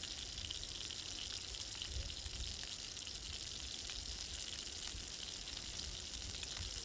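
Ribeye steak sizzling in a hot pan over a campfire, a steady hiss with fine crackles and a low rumble underneath.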